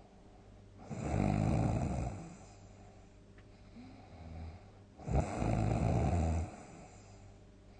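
A sleeping person snoring loudly: two long snores about four seconds apart, with a faint breath between them.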